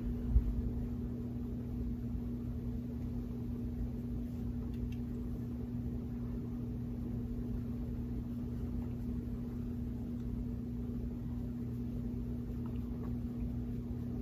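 A steady low hum with a faint constant buzzing tone, like an appliance or electrical hum, with one soft thump about half a second in.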